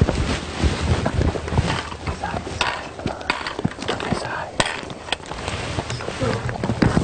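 Hurried footsteps over loose rocks and through dry brush, with scattered knocks and clicks from the handheld camera and wind rumbling on the microphone.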